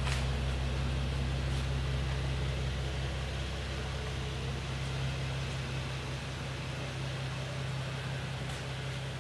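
A steady low mechanical hum under an even hiss, unchanging throughout, with a few faint clicks.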